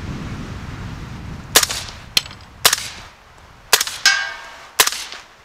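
Four suppressed shots, about a second apart, from a Saint 300 Blackout AR pistol with a Griffin 30 SD silencer firing 220-grain subsonic rounds. Each shot is a short, sharp crack rather than a loud boom. A ringing metallic clang follows the third shot.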